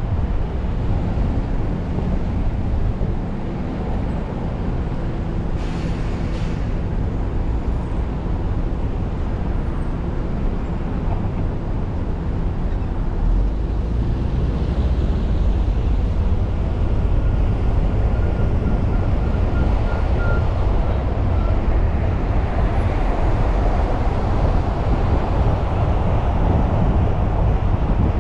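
City street traffic heard from a car driving along: steady road and engine rumble that grows a little louder in the second half. A short hiss comes about six seconds in, and a faint high whine lasts a few seconds in the middle.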